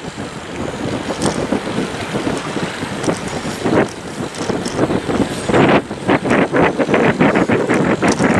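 Wind blowing across the camera's built-in microphone as a steady rushing. About two-thirds of the way in it turns into a rapid flutter of quick buffets, about five a second.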